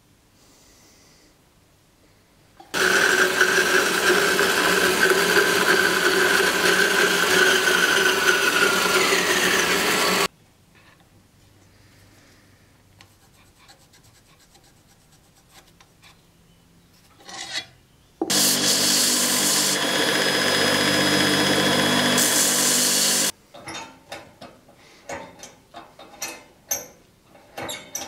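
A power tool grinding or sanding metal, running steadily twice for several seconds at a time and cutting off abruptly each time. Near the end comes a run of short metal clicks and creaks from a die stock cutting a thread on a steel rod held in a vise.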